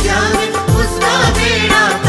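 Hindi devotional bhajan music in an instrumental interlude between sung verses: a steady drum beat under a wavering melody line.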